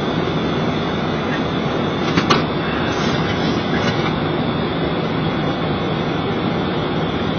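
Steady rushing flight-deck noise of a Boeing 737 in flight, with a single short click about two seconds in.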